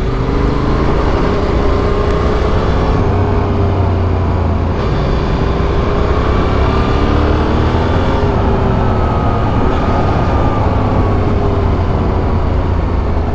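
Yamaha Ténéré 700's parallel-twin engine running steadily under way, its revs rising and falling gently through the corners.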